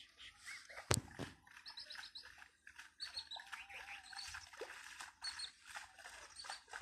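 Small birds chirping, a busy run of short, high chirps and trills, with one sharp click about a second in.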